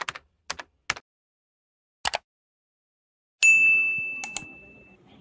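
A few sparse, short clicks, then about three and a half seconds in a bright single bell ding that rings and fades away, with two quick mouse clicks during its ring: a subscribe-button and notification-bell sound effect.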